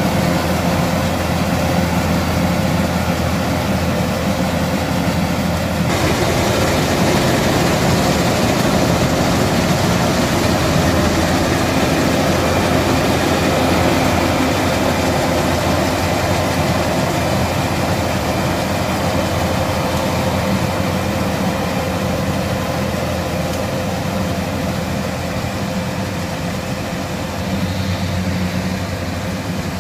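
Kubota DC70 combine harvester's diesel engine running steadily, with a denser whir of machinery joining about six seconds in.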